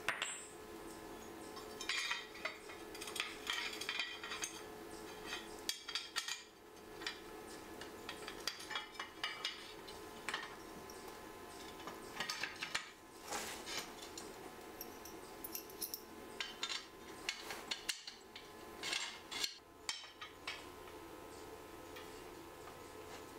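Aluminium bars, bolts and a cast aluminium hinge clinking and clattering against each other and the concrete floor as they are handled and fitted together: irregular sharp metal clinks, thinning out near the end, over a steady hum.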